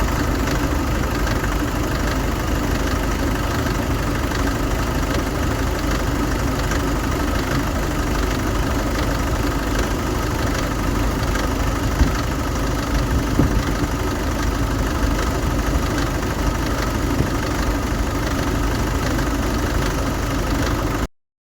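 Nissan Pathfinder R51 2.5 dCi four-cylinder diesel engine idling steadily, warmed up for about five minutes, with an unidentified engine noise the owner is trying to pin down. A single sharper click comes about halfway, and the sound cuts off suddenly near the end.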